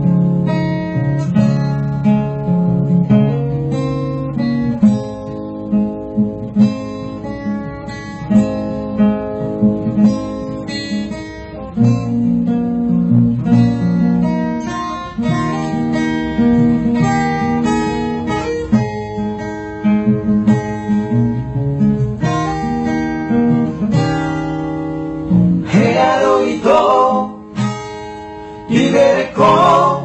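Acoustic guitar music: a plucked melody over strummed chords in the song's instrumental introduction. Singing comes in near the end.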